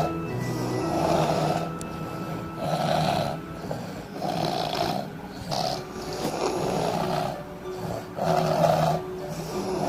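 Two sleeping people snoring together in a duet, with a rasping snore coming about every one to two seconds.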